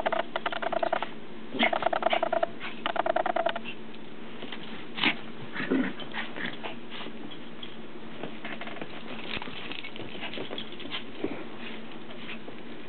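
Toy poodles play-growling in four short, rough bursts over the first few seconds, then scuffling, with soft pattering of paws and plush toys on carpet for the rest.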